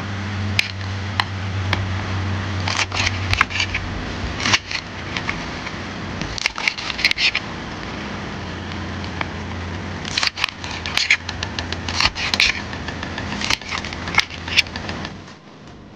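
Knife cutting crisp deep-fried tofu into cubes: clusters of crunching crackles and clicks as the blade goes through the fried crust and taps the board, coming every couple of seconds. A steady low hum runs underneath.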